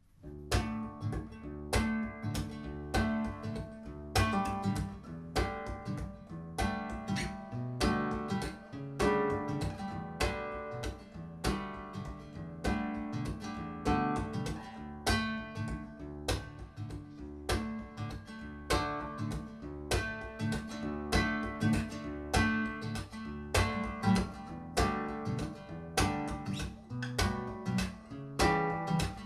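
Acoustic guitar strumming a steady, even rhythm with no singing, played back through Epos ES11 hi-fi bookshelf speakers and picked up in the room.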